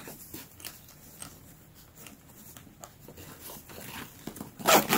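Nylon zipper on a camera backpack's compartment being pulled along by hand, with small scattered clicks and fabric rustling.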